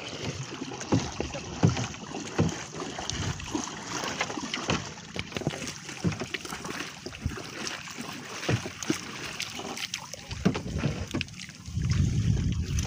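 Gill net being hauled by hand into a wooden outrigger boat: wet net and sea water splashing over the side, with irregular knocks and clatter of the net's floats against the hull. Wind buffets the microphone near the end.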